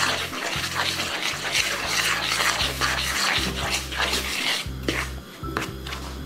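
A fork and hand scraping and stirring egg into semolina flour in a plastic bowl: quick, repeated scratchy strokes that fade about two-thirds of the way through into softer kneading sounds, over background music.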